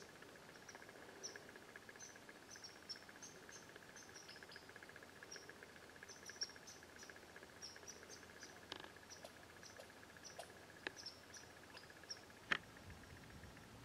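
Crickets chirping faintly in a fast, steady trill, with scattered short high chirps over it. A single sharp click near the end.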